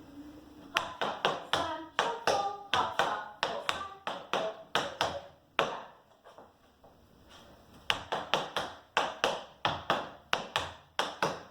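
Tap shoes' metal taps striking the floor in a slow, uneven run of tap-dance steps: the break of a time step danced at half speed. The taps stop for about two seconds midway, then start again.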